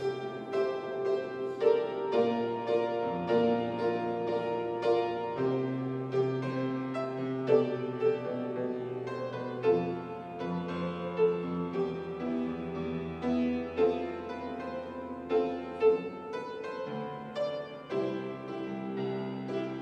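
Piano playing a slow worship-song accompaniment, with chords struck in a steady, unhurried pulse.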